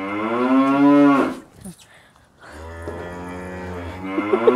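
Gir cattle mooing: a long low moo that rises in pitch and cuts off about a second in, then after a short pause a second long moo that starts about halfway through and grows louder toward the end.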